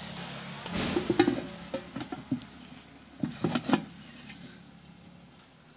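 Metal lid clanking and rattling onto a metal karahi of frying chicken, in two bursts of sharp knocks, about a second in and again around three and a half seconds in, over a faint sizzle that dies away once the pan is covered.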